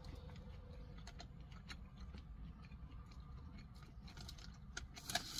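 A person quietly chewing a buffalo chicken nugget, with faint scattered mouth clicks over a low steady hum. About five seconds in, a paper bag starts crinkling.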